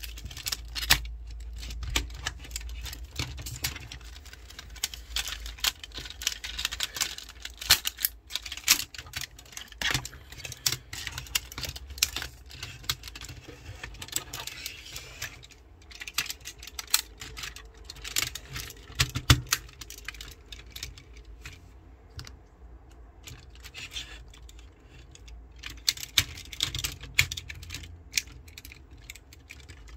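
Plastic parts of a Tobot transforming robot toy clicking and snapping irregularly as they are folded, turned and locked into place by hand.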